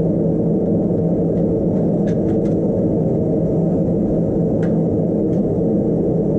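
Forge running with a loud, steady low rush, while a steel billet heats to welding heat. A few faint light clicks come between about two and five seconds in.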